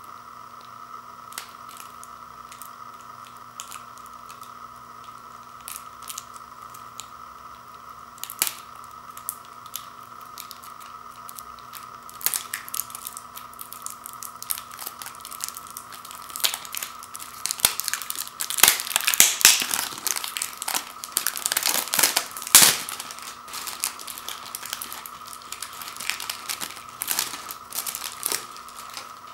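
Clear cellophane shrink-wrap being picked at and peeled off a slim plastic jewel case. Scattered small clicks and crinkles at first, then about halfway through a stretch of dense, louder crinkling and tearing as the wrap comes away.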